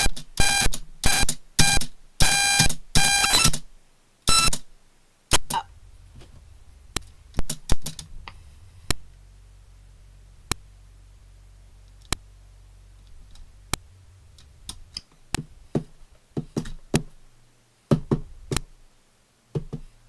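Raw bytes of a computer file played back as audio by the Binary Waterfall player: a fast run of loud, chopped electronic beeps for about the first three and a half seconds, then a low hum scattered with sharp clicks and short blips.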